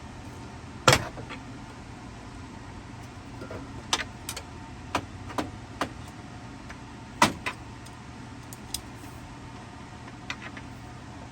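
Sharp metallic clicks and knocks of hand tools and parts being handled during an engine teardown. They come irregularly, loudest about a second in and again about seven seconds in, over a steady low hum.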